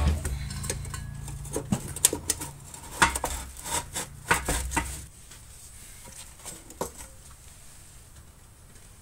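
Irregular metallic clinks and knocks of exhaust pipe and muffler parts being handled and fitted together. The clatter thins to a few scattered clicks after about five seconds.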